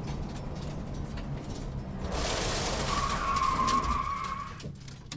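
Car interior: road and tyre rumble as the car slows, then a hiss and a steady high squeal lasting about a second and a half, typical of brakes bringing the car to a stop, before everything fades away.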